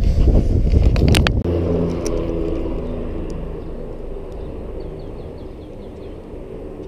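Road traffic passing on a bridge overhead: a vehicle's hum fading away over several seconds. The first second or so is a heavy low rumble with a couple of sharp knocks.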